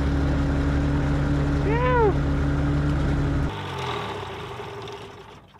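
Small light-aircraft engine running at a steady speed. About two seconds in there is a short chirp that rises and falls in pitch. The engine note changes about three and a half seconds in and then fades out.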